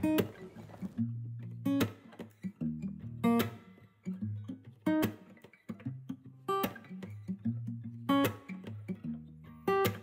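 Background music: strummed acoustic guitar, a chord struck about every second and a half over held low notes, in an instrumental gap between sung lines.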